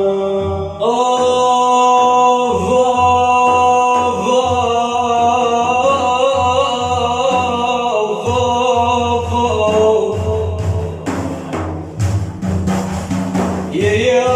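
A man chanting an Islamic devotional praise song in long, drawn-out held notes that bend and waver, with drums beating a steady rhythm underneath.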